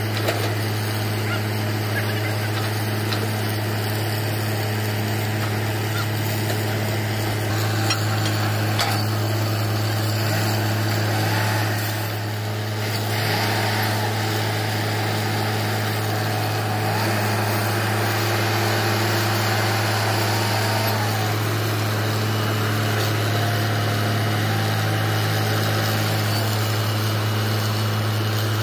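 Truck-mounted borewell drilling rig's engine running steadily, a constant low drone that does not change pitch.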